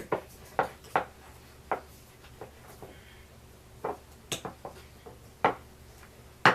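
Spoons clinking and knocking against bowls while stirring thick melted Starburst candy: irregular sharp clinks, the loudest one near the end.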